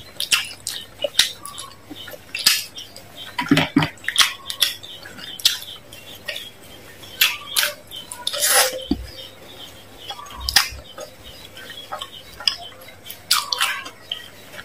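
Close-up eating sounds of a fried chicken leg: bites, chewing and wet mouth clicks and smacks at irregular intervals.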